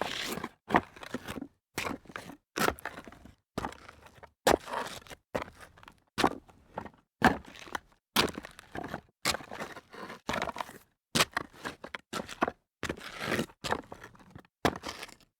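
Sneakers stepping on loose rock debris: a long run of crunching, gritty footsteps with some scraping, at an uneven pace with short silent gaps between steps.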